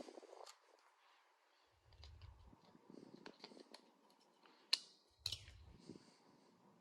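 Near silence broken by scattered faint clicks, with two sharper clicks about half a second apart near the end.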